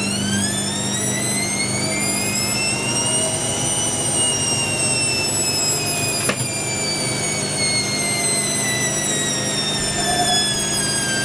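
Hoover WDYNS654D washer dryer's drum motor whining as the drum speeds up while trying to balance the load for the spin. The pitch rises for about three seconds, then falls slowly as the drum slows again, over a steady low hum. There is a single faint click about six seconds in.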